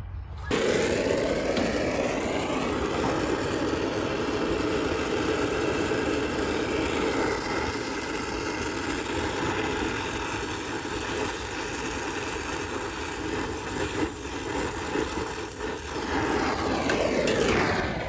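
Oxy-acetylene torch flame burning steadily on a copper refrigerant line, a constant rushing noise that starts abruptly about half a second in, as the joint is brazed.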